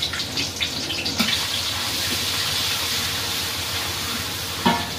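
Food frying in hot oil in a wok over a wood fire: a steady, hissing sizzle that swells about a second in, with a few spatula clinks in the first second. A short loud sound comes near the end.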